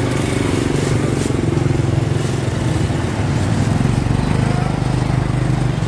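A small engine running steadily at idle, with a low, even hum and street noise over it.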